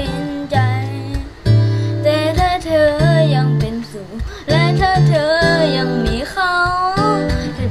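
A boy singing a song over a strummed guitar accompaniment, his voice wavering with vibrato on held notes.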